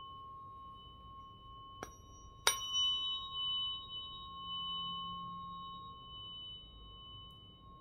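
Large metal tuning fork ringing with a clear steady tone and higher overtones. It is struck twice against a striker disc, about two and two and a half seconds in, the second strike the louder, and the ring then slowly fades.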